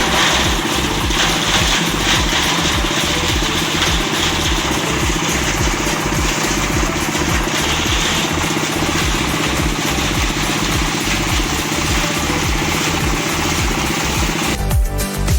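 Plastic shredding machine running steadily, with a rapid low pulsing under a dense mechanical noise. It cuts off just before the end, where music comes in.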